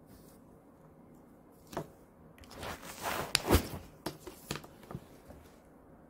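A felt-tip marker scratching on paper for about a second and a half, then several sharp clicks and taps as the pen is capped and set down on the table.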